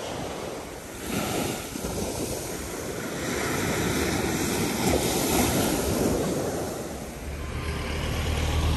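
Surf washing up on a beach, swelling and easing in waves, with wind on the microphone; a low steady hum starts near the end.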